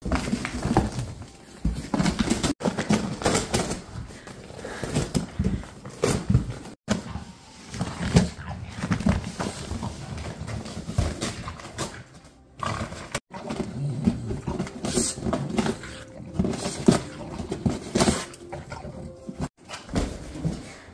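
English bulldog making low throaty grunts and growls while biting and ripping apart a cardboard box, with cardboard tearing and crunching throughout.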